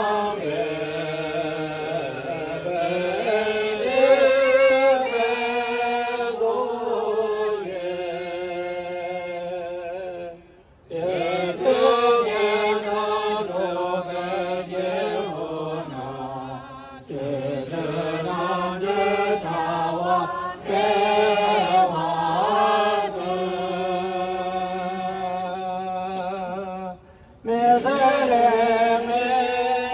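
Tibetan Buddhist prayer chanted in long, sustained phrases on steady pitches, with short breaks about ten seconds in and again near the end.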